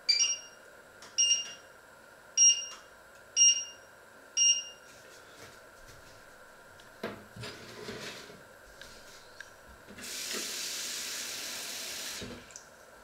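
Electric glass-top hob's touch controls beeping five times, about once a second, as it is switched on and set. Then a few knocks of pots, and a tap running for about two seconds near the end.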